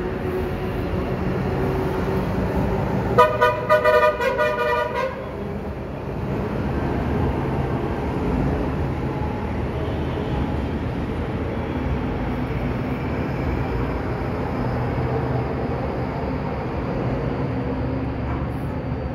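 Steady rumble of vehicles going by, with a horn sounding in a quick run of short honks about three seconds in that lasts roughly two seconds.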